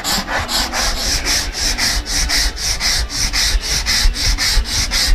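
Quick, even back-and-forth strokes of hand-smoothing on the wooden shell of a handmade tumbadora (conga drum): a dry, scratchy rubbing at several strokes a second, working out the scratches in the wood before it is sealed and varnished.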